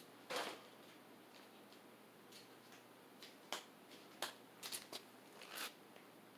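Hampton Bay St. Claire ceiling fan running on medium speed in reverse: a faint steady hum with a handful of soft, irregular clicks and rustles. The fan has a little wobble in reverse.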